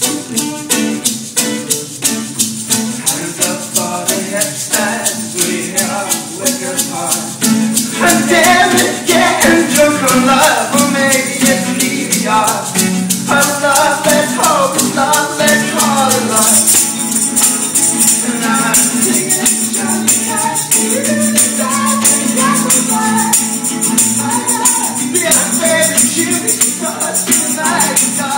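Live acoustic pop song: steel-string acoustic guitar strummed with a tambourine shaken on the beat, and male voices singing the melody from about eight seconds in. The tambourine jingles grow brighter and more continuous a little past halfway.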